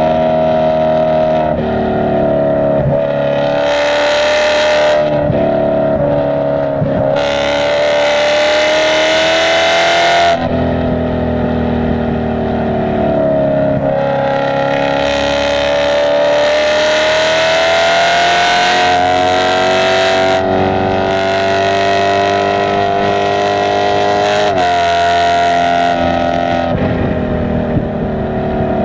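Car engine running hard on a racetrack lap, its pitch rising and falling with the throttle, with several sudden drops in pitch at gear changes or lifts.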